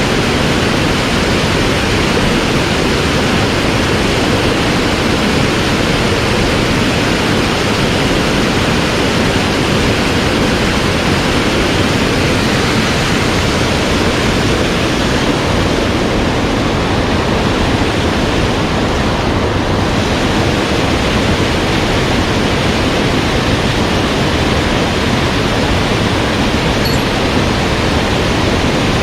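Rushing mountain headwater stream: a steady, loud wash of moving water.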